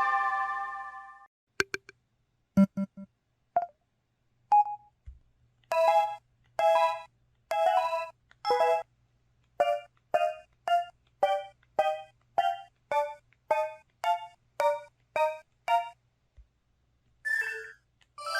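Built-in system sound effects of an LG-LU6000 Cyon phone, played by its Yamaha YMU792 synthesizer chip and recorded straight from the handset's output. A chord fades away at the start, then a few clicks and short blips, then a run of short electronic chimes about two a second, each a stack of notes.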